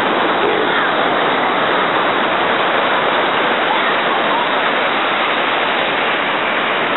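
Ocean surf breaking and washing around the waders' legs: a steady, loud rushing of waves and foam that does not let up.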